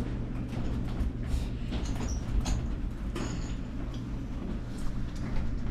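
Elevator car running: a steady low hum with light rattling clicks throughout.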